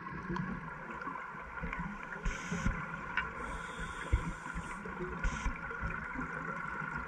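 Underwater sound through a dive camera housing: a steady whine over a low, irregular rumble, with three hissing bursts of scuba regulator exhaust bubbles about two, three and a half, and five seconds in.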